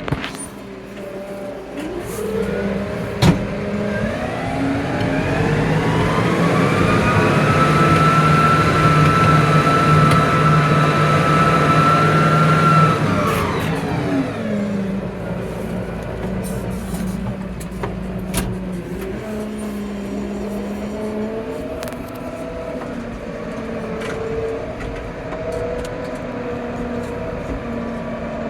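Tractor engine revving up over several seconds, held at high revs, then dropping back to a steady idle about halfway through. A sharp click comes about three seconds in.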